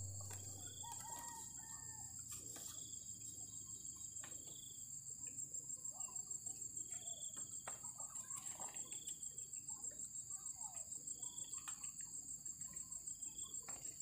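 Insects chirring steadily in a high, rapid pulse, with chickens clucking and birds chirping now and then over it.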